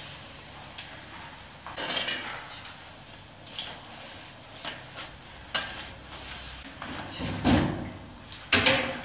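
A wet mop-string figure pushed with a mop, swishing and scraping over a wet concrete floor in irregular strokes, with knocks and clatters among them; the loudest is a thump about three quarters of the way through.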